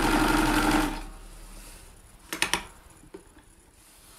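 Kenmore 1802 sewing machine running a straight stitch through stretch knit, then stopping about a second in. A little over two seconds in there is a quick cluster of three sharp clicks.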